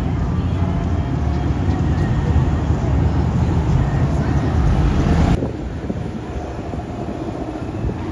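Car engine rumbling low, with wind noise on the microphone; the sound drops off abruptly about five seconds in and carries on quieter.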